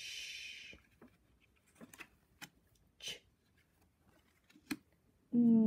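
A drawn-out 'shh' hiss of a voice giving the 'sh' phonics sound, then light clicks and a brief rustle of flashcards being handled on a table. Near the end comes a hummed 'ng' sound, slowly falling in pitch.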